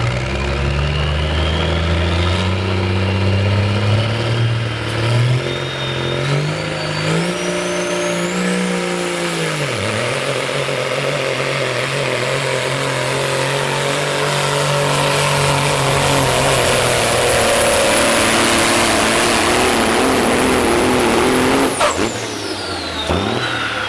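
Pro stock semi truck's turbocharged diesel engine at full power pulling a weight-transfer sled. A high turbo whine rises steadily and then holds, while the engine note drops and climbs again at several gear shifts. Near the end the whine falls away.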